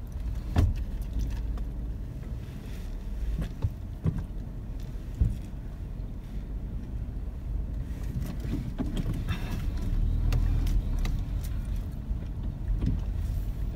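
A car's engine and tyres, a low steady rumble heard from inside the cabin as the car reverses and creeps forward at low speed. A few sharp knocks come about half a second in and again around 4 and 5 seconds in.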